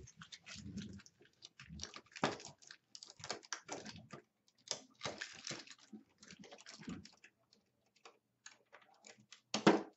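Hands handling tape tabs against the plastic casing of a mini-split indoor unit: irregular light clicks and rustles, with a louder click near the end.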